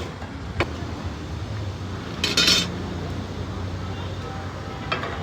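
Metal cookware and utensils clinking and clattering: a single clink about half a second in, a short burst of clatter around the middle, and another clink near the end, over a steady low background hum.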